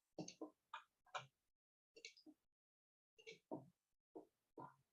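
Near silence, broken by a dozen or so faint, very short sounds that cut in and out.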